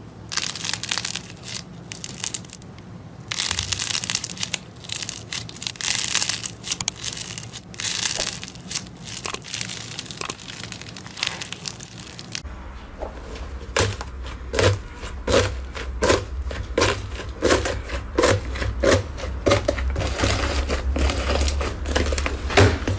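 Slime being squeezed and pressed by hand, giving crackling, crinkling squish sounds. About halfway through the sound changes to a quick run of sharp sticky pops and clicks, roughly two a second, over a low hum.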